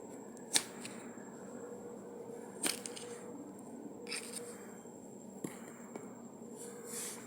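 Dried clay crunching and crumbling: soft scraping and crumbling, broken by a few sharp cracks, the loudest about half a second and two and a half seconds in.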